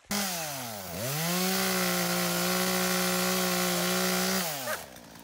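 Chainsaw running at high revs: the pitch drops and climbs back about a second in, holds steady at full throttle for about three seconds, then falls away near the end as the throttle is let off.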